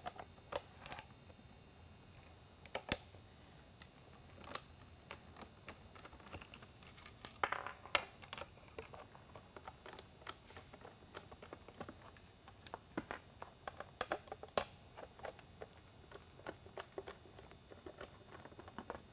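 Hand screwdriver turning small screws out of an aluminium lighthead housing: faint, irregular clicks and short scrapes of the bit and screws, a few louder clicks among them.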